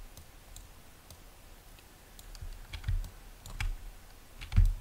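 A few soft, scattered clicks from working a computer at a desk, mostly in the second half, with a slightly louder click and thump near the end.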